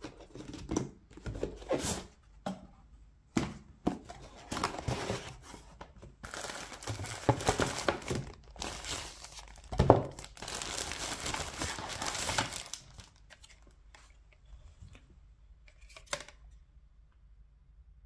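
Tissue-paper wrapping rustling and crinkling while a cardboard box is opened and a VR head strap is unpacked, in irregular bursts with a sharp knock partway through. Quieter handling with a couple of clicks near the end.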